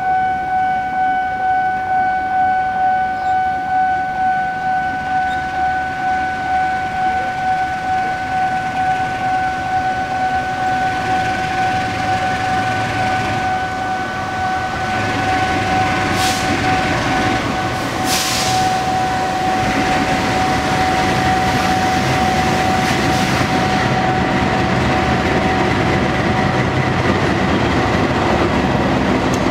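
A diesel-electric locomotive, KAI class CC 206, approaching and drawing close at the head of a short train, its engine and wheels rumbling louder over the last ten seconds. A steady high warning tone that pulses about once a second sounds until about three-quarters of the way through. Two short hissing blasts come about halfway through.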